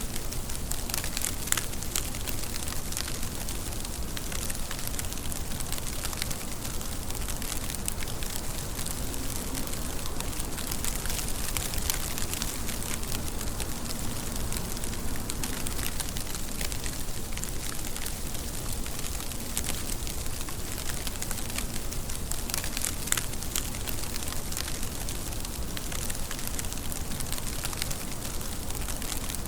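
Steady rain, an even hiss full of sharp individual drop hits, with a few louder hits about a second and a half in and again about 23 seconds in.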